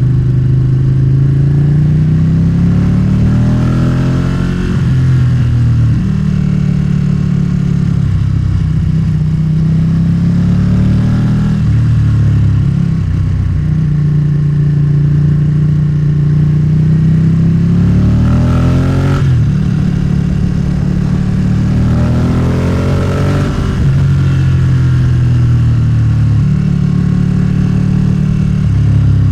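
Motorcycle engine under way, its pitch climbing as it accelerates and dropping sharply at gear changes about four times, holding steady between.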